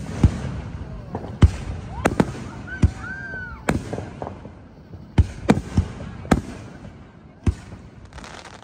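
Aerial firework shells bursting overhead: about a dozen sharp bangs at irregular intervals, each trailing off in an echo. The bursts thin out near the end.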